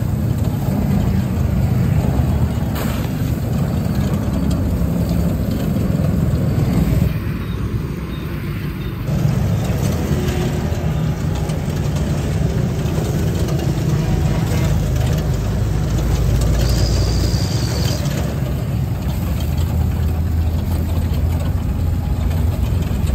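Steady low rumble of vehicle engines in street traffic, dipping briefly about eight seconds in.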